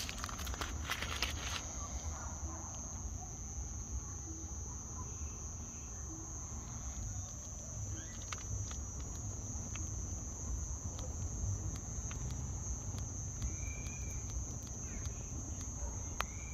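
Crickets trilling steadily in a high band over a low rumble, with scattered sharp clicks and a couple of short chirps in the second half.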